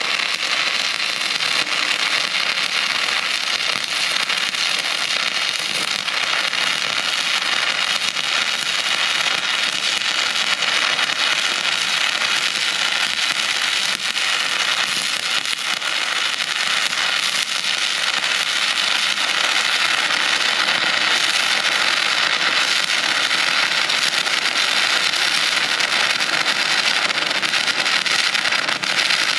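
Stick (manual metal arc) welding: a covered electrode's arc burning in one continuous run, a dense, steady crackle and hiss with no breaks.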